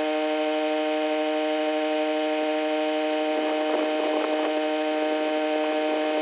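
Pressure washer running as a steady, even-pitched hum, with a brief rougher stretch a little past halfway.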